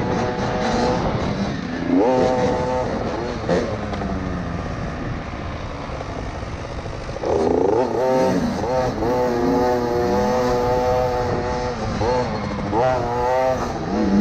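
KTM SX50's single-cylinder two-stroke engine revving on and off the throttle under riding load, with sharp rises in pitch about two seconds in, near the middle and again near the end, and a quieter easing-off stretch in between.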